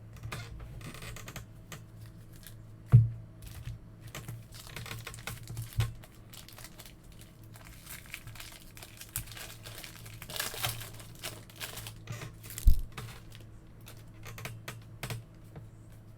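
Trading card packs being opened and sorted by hand: foil wrappers crinkling and tearing, with quick clicks of cards being flicked through. Two dull thumps, about 3 and 13 seconds in, are the loudest sounds. A low electrical hum runs steadily underneath.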